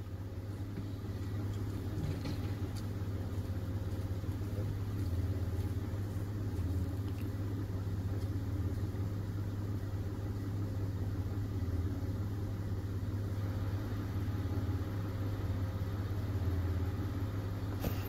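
A Mitsubishi Pajero's six-cylinder engine idling, a steady low hum.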